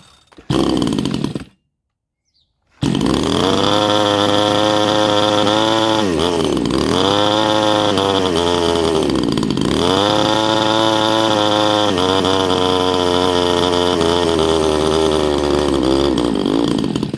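Chinese 62cc two-stroke chainsaw engine with a hollowed-out muffler fires briefly, then catches about three seconds in and runs at high revs. The revs sag and pick back up twice before it cuts out near the end; the owner takes this for the engine needing more fuel at the carburettor screws.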